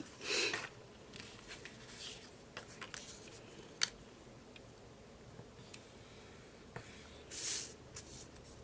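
Sheets of paper being handled and slid, two brief rustling swishes near the start and near the end, with a few light taps in between.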